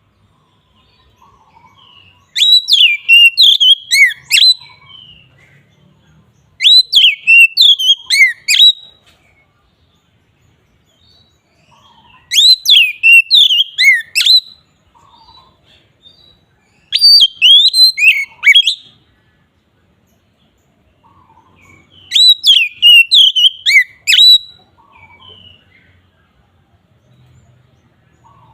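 Oriental magpie-robin (kacer) in full, open song: five loud phrases of rich whistles with sweeping downward glides, each about two seconds long, with short pauses between them.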